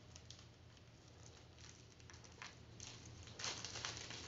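Faint crinkling and rustling of a clear plastic wrapper being handled and opened around a bath bomb, soft and scattered at first and a little louder in the second half.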